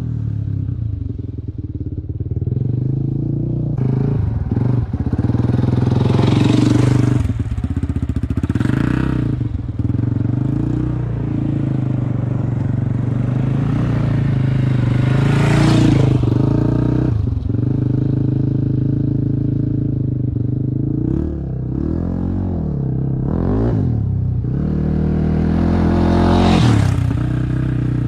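Quad bike (ATV) engines running and revving, the engine note rising and falling in pitch again and again, with a louder swell roughly every ten seconds.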